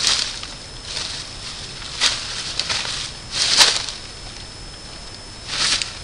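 Dry leaf litter rustling and crunching under deer hooves in about six irregular scuffles as a buck mounts a doe, the loudest a little past halfway.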